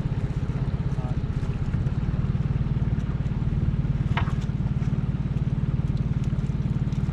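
Small boat's outboard motor idling steadily, a low, even putter that does not change. A brief high chirp sounds about four seconds in.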